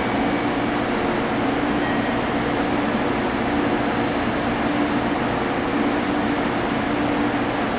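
JR Kyushu 415 series electric train departing, a steady rail running noise with a constant low hum throughout.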